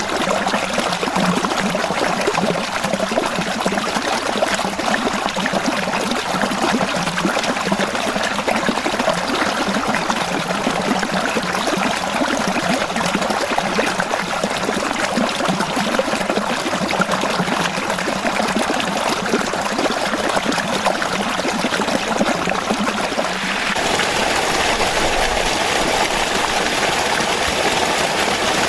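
Natural stream water flowing and trickling steadily over rocks. About 24 seconds in, it switches abruptly to a brighter, fuller rush of water.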